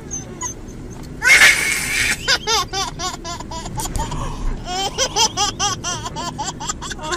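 A toddler laughing: a loud breathy burst of laughter about a second in, then a long run of short, high giggles several times a second.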